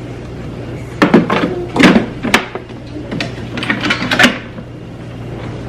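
A series of sharp knocks and clunks of things being handled in a kitchen, bunched between about one and four and a half seconds in, some with a brief ring, over a steady low hum.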